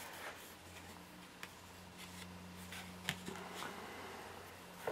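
Faint handling sounds of steel swaging die parts and punches being set down and moved on a tabletop: a few light clicks over a low steady hum.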